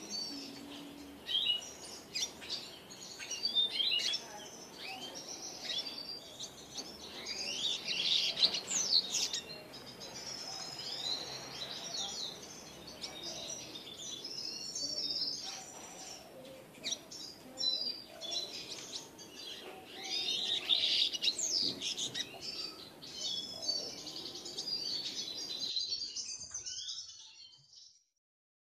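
Double-dilute mutation red siskin singing: a long, rapid twittering song of chirps and quick sweeping notes, fading away near the end and stopping.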